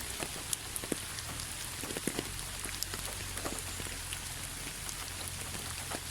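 Steady rainfall: an even hiss of rain with many individual drops ticking sharply at irregular moments, over a steady low rumble.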